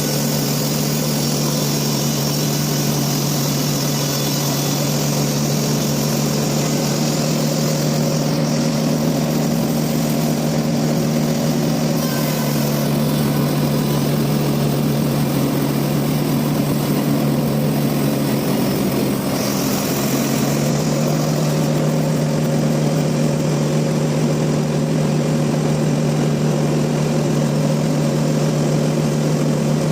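Sawmill machinery running steadily with a constant low hum under a noisy hiss; the hiss in the upper range drops away for several seconds midway, then returns.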